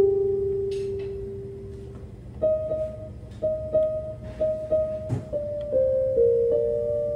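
Electronic keyboard playing a single-note melody. One note rings and fades away, then after about two and a half seconds comes a run of quick repeated notes on one pitch, stepping down to lower held notes near the end.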